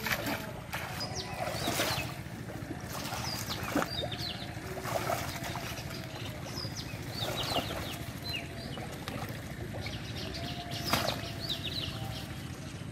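Someone wading through shallow water choked with water hyacinth: irregular splashing and swishing of water and leaves with each step.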